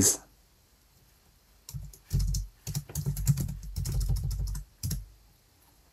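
Typing on a computer keyboard: a rapid run of keystrokes with dull thuds, starting about two seconds in and stopping about a second before the end.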